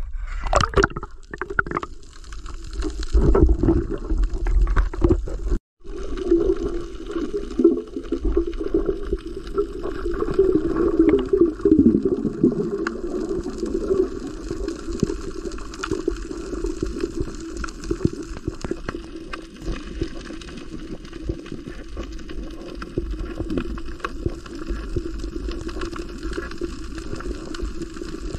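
Muffled underwater water noise from a spearfisher swimming at night: sloshing and bubbling around the submerged camera. There are heavier splashes and knocks in the first few seconds, then a steady murky rush.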